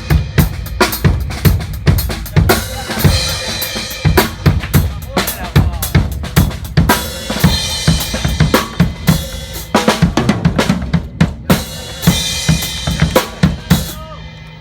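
Acoustic drum kit played in fast, busy patterns: kick drum, snare with rimshots, and cymbals. The playing stops near the end and the last hits ring out.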